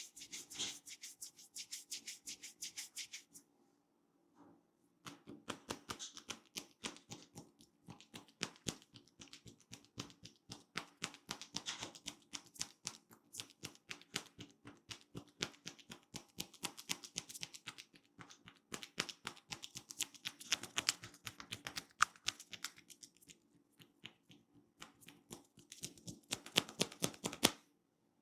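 Hands working on an oiled scalp and hair during a head massage: a fast run of crisp taps and crackles, about five a second, broken by a couple of short pauses.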